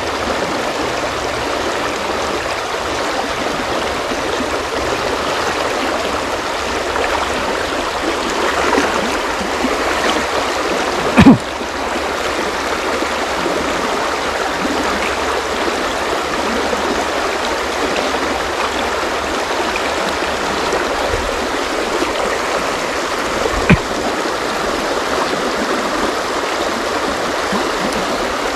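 Shallow river rushing steadily over stones in a riffle. Two sharp knocks cut through it, a loud one about eleven seconds in and a smaller one near the end.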